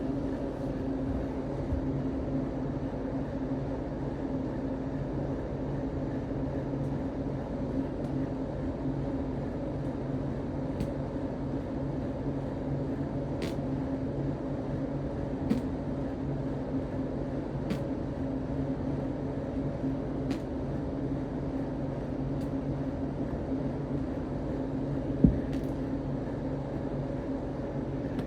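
A steady low machine hum with a few faint sharp clicks, one louder click near the end.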